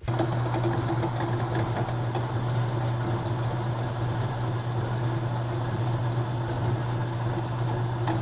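Drill press running, its electric motor giving a steady low hum.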